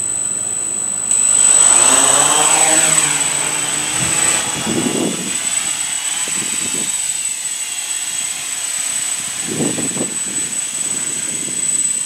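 Quadcopter's electric motors and propellers spinning up from idle about a second in as it lifts off, rising in pitch, then a steady buzzing whine while it hovers.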